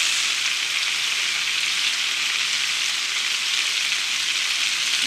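Canned lechon sisig (chopped roast pork) frying in oil with onions in a pan, with a steady, even sizzle.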